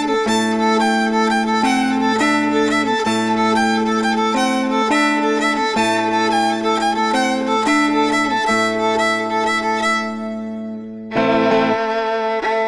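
Instrumental background music: a melody over a steady low drone. It fades about ten seconds in, and a new passage starts about a second later.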